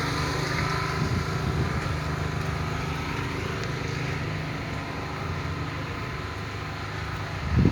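Heavy diesel engine of construction machinery running steadily, with a short thump near the end.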